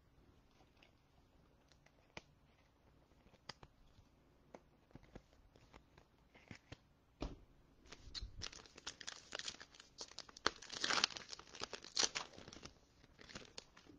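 A foil trading-card pack wrapper being torn open and crinkled by hand. At first there are only a few faint scattered clicks. From about eight seconds in comes a dense run of tearing and crackling, loudest a little before the end.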